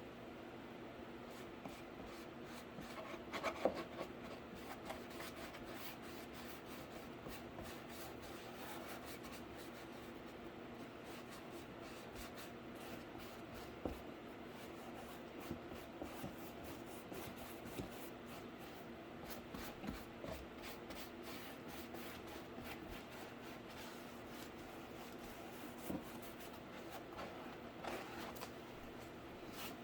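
Soft rubbing and scratching on cardboard, with scattered light taps as the cardboard PC case is worked on by hand, over a steady low hum. The clearest tap comes a little after 3 seconds in.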